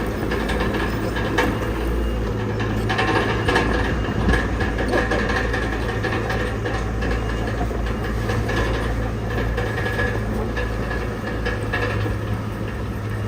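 Crawler bulldozer's diesel engine running steadily under load, with irregular metallic clanks and rattles from the tracks and pushed stone.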